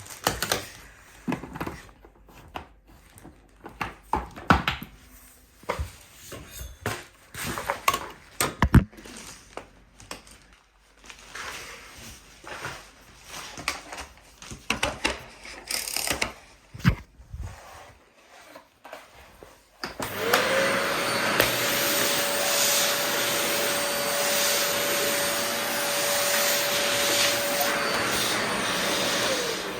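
Concept Bello bagged vacuum cleaner, first handled with scattered clicks and knocks, then switched on about two-thirds of the way in. Its motor whine rises quickly to a steady pitch, runs for about nine seconds, and winds down as it is switched off near the end.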